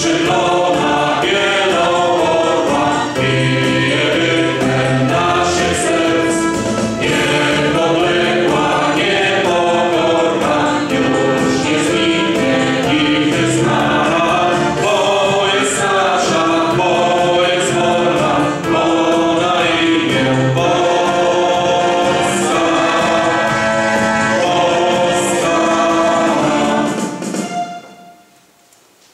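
Small women's choir singing in Polish, several voices together in harmony. The singing ends about two seconds before the end.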